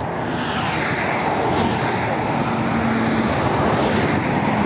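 Road traffic passing on a multi-lane highway: a steady rush of tyres and engines, with a held engine hum for a couple of seconds in the middle.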